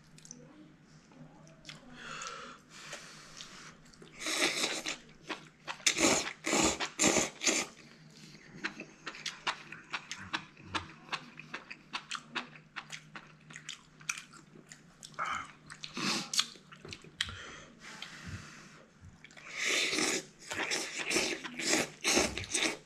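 A man slurping spicy seafood ramen noodles with chopsticks and chewing wetly. There are several long slurps, the loudest in the middle and near the end, with smacking chewing between them.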